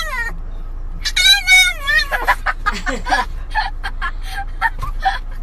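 A cat meowing, with one long wavering meow about a second in and shorter calls after it.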